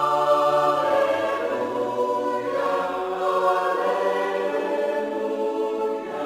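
A choir singing long held chords, the chord changing about two and a half seconds in and again near the end: a stock comedy sound effect.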